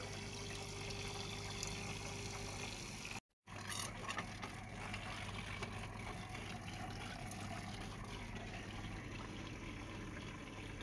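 Faint steady low hum and hiss with a few light plastic clicks as a clear plastic aquarium filter is fitted onto the glass rim of the tank. The sound drops out for a moment a little over three seconds in.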